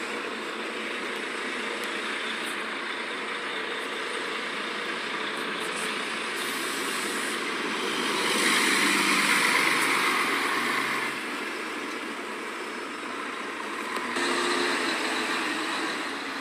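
City bus driving past close by, its engine and tyre noise loudest for a few seconds just past the middle, with a brief high hiss a little before it. Near the end the sound changes abruptly to another bus moving off at a distance.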